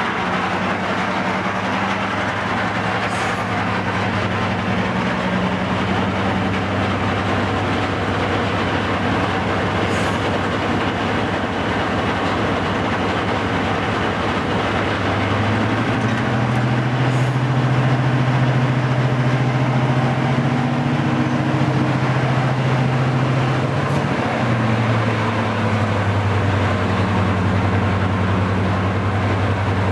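Class 55 Deltic locomotive's twin Napier Deltic two-stroke diesel engines running with a steady, loud drone. About halfway through, the engine note steps up higher and louder for around eight seconds, then drops back to its earlier pitch.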